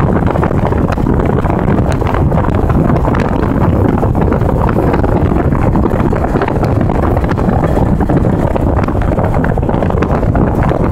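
Steady rush of wind buffeting the microphone over the low rumble of a vehicle travelling at speed.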